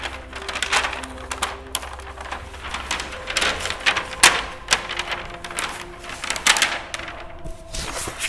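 Green cellophane film being handled and crumpled by hand, crinkling in many irregular sharp crackles.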